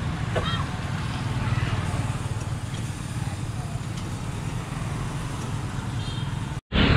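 Steady low rumble of background noise with faint voices. The sound drops out for a split second near the end.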